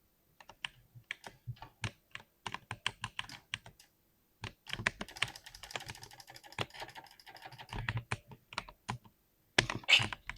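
Typing on a 60% keyboard: separate keystrokes at first, then a fast, dense run of typing from about halfway, with a louder flurry of keystrokes near the end.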